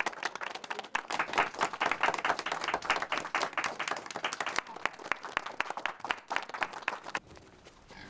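A small group of people clapping their hands in applause, many irregular claps overlapping. The clapping stops abruptly about seven seconds in.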